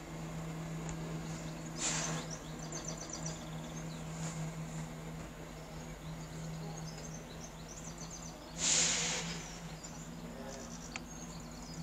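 Class 170 Turbostar diesel multiple unit running as it pulls away, a steady low engine drone, with birds chirping over it. A brief rush of hiss about nine seconds in.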